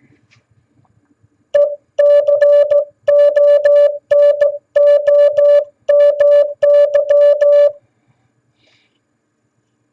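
Morse code sidetone, a single steady mid-pitched beep keyed on and off in short dots and longer dashes, spelling the word "economy" once at an even practice speed over about six seconds.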